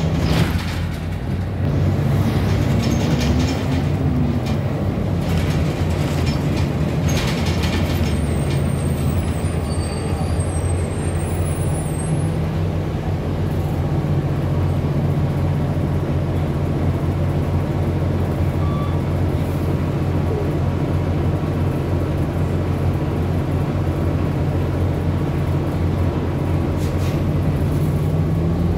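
City transit bus under way, heard from inside the cabin: steady engine and drivetrain drone with road noise. The engine hum rises in pitch a few seconds in as the bus picks up speed, with a few brief rattles.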